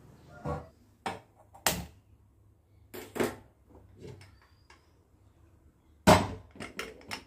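Aluminium pressure cooker handled on a kitchen counter and on a gas stove: scattered light clicks and knocks, then a louder metal knock about six seconds in as the cooker is set down on the burner's pan support, followed by a few quick clicks.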